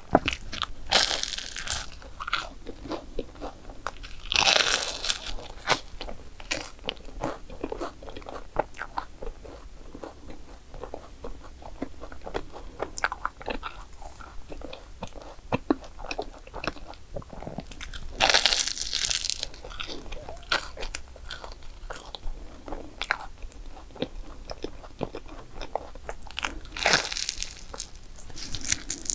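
Crunching bites into a crisp croffle (croissant waffle), with steady chewing in between; the loudest crunches come four times, about a second in, around four and a half seconds, around eighteen seconds and near the end.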